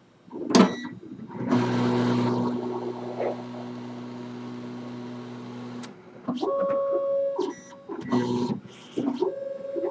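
Two MakerBot desktop 3D printers, a Replicator+ and a Replicator 5th Gen, starting a print: their stepper motors whir as the extruder heads and build plates move into position. A click comes just after the start, then a steady motor hum for a few seconds. After that come short runs of pitched motor whine with small knocks as the axes move in stages.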